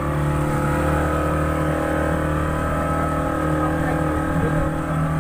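Outboard motor of a small open boat running steadily at cruising speed, its pitch holding level, with the rush of water under the hull.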